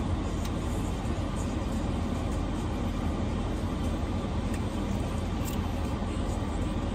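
Car engine idling, a steady low rumble heard from inside the cabin, with a few faint clicks of chewing on top.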